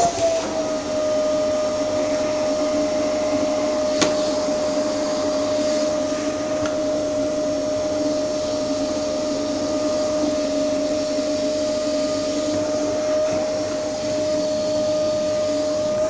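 Vacuum cleaner running with a steady whistling tone while the end of its hose is gripped against a cat's body, the pitch wavering briefly near the start and end. A single sharp click about four seconds in.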